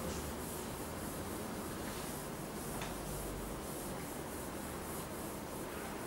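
Chalkboard eraser wiping chalk off a chalkboard in quick, repeated back-and-forth strokes: a steady rubbing hiss.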